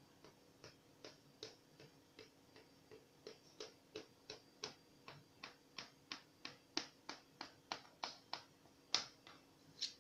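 Knife tip tapping against the bottom of a metal baking tin while cutting a soft chocolate-topped cake into squares: a quick, even series of faint clicks, about three a second, growing louder towards the end.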